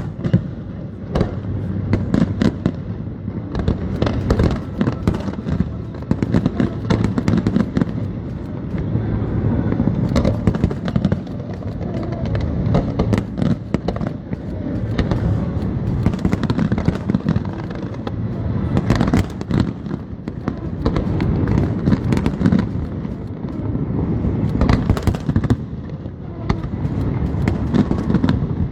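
Aerial fireworks display going off continuously: many sharp bangs and crackles in quick succession over a low, rolling rumble.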